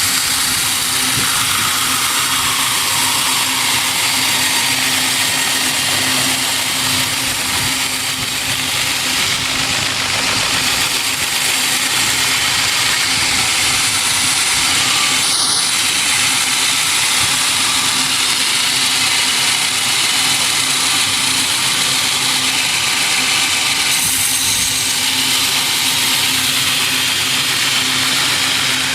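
Sawmill machinery running steadily: a constant hum under a loud high hiss.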